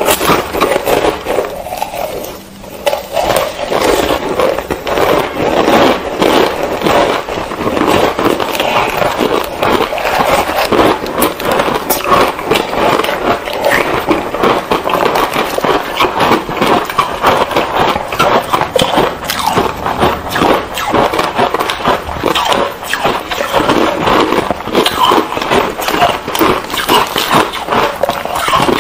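Ice being bitten and chewed: a dense, continuous run of crisp crunches from green powder-coated frozen ice, two eaters' crunching layered together, with a short lull about two seconds in.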